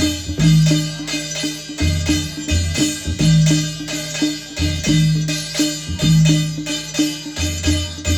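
Adivasi folk drumming: madal and dhulgya drums beaten in a steady, fast rhythm, deep booming strokes among quicker light beats, with a struck brass thali plate ringing bright over them.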